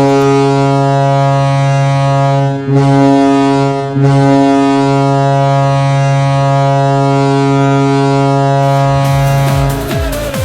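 Ice hockey goal horn sounding as a low, steady horn tone: a blast of about two and a half seconds, a short one, then a long held blast. Near the end the horn gives way to a goal song with a dance beat.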